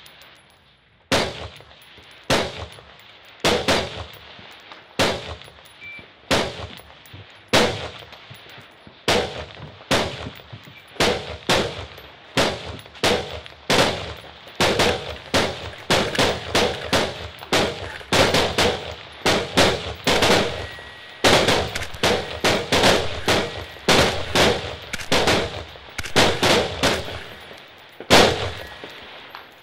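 Shots from scoped AR-style semi-automatic rifles fired prone off bipods in a shooting-shed stage, each a sharp crack with a short ring. They come about one a second at first, then faster and overlapping from about halfway, as several shooters' strings run together, and stop shortly before the end.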